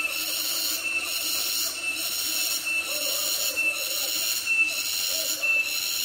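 Cicadas calling in a shrill, steady buzzing chorus that pulses with a short dip about once a second.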